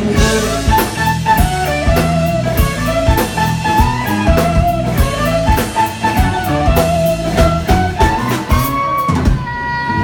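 Live rock band playing an instrumental passage: electric guitar melody over bass guitar and drum kit, with no vocals. Near the end the drums drop out, leaving a held note.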